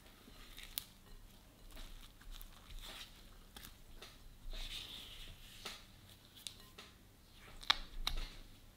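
Silicone spatula stirring and folding wet honey-cake dough in a glass bowl: soft irregular scraping and squishing strokes, with two sharp taps against the glass near the end.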